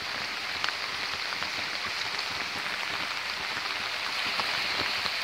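Steady rushing of a creek in flood, swollen brown water running fast over its bed, with rain falling and a few faint drop ticks.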